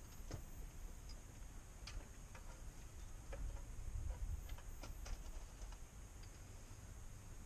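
A scattered handful of faint light clicks at irregular moments, over a low, uneven rumble and a steady high hiss.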